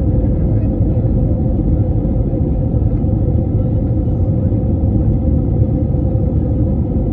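Airliner cabin noise: a steady low rumble of the jet engines and airflow, with a faint steady hum above it.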